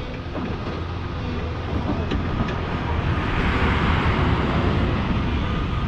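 Volvo excavator's diesel engine running under steady load, a deep even rumble, with a rushing noise that swells and fades around the middle and a couple of light knocks.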